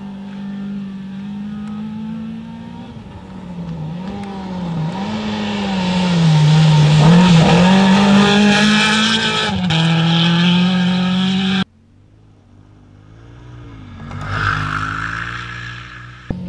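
Rally car engine revving hard as the car passes on a gravel road, its pitch dipping and climbing with throttle lifts and gear changes, with a rush of spraying gravel and tyre noise as it goes by closest. About two-thirds of the way through the sound cuts off suddenly, and a second, fainter pass swells up and fades.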